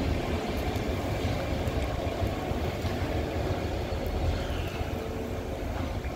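Irish Rail ICR (22000 Class) diesel railcar pulling away into a tunnel, its engines a steady low rumble that slowly fades.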